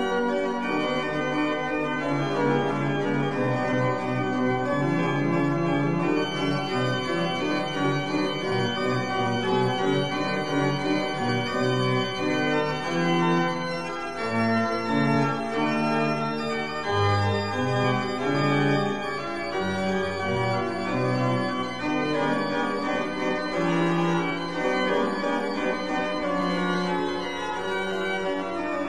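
Background organ music: held chords over a bass line that steps from note to note.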